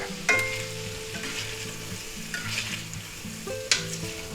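Shrimp sizzling in hot oil in a cast iron skillet while a metal spatula scrapes and stirs them out of the pan, with one sharp clink of the spatula about three and a half seconds in.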